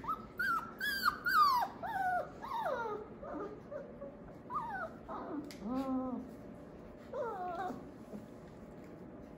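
Four-week-old Australian Labradoodle puppies whining and yelping: a quick run of short, high cries that fall in pitch, thickest in the first three seconds, then a few more scattered cries up to about eight seconds in.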